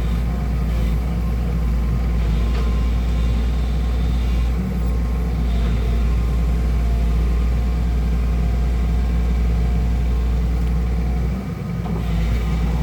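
Excavator's diesel engine running steadily at working revs, a continuous low rumble. It dips briefly near the end, then a rising tone begins.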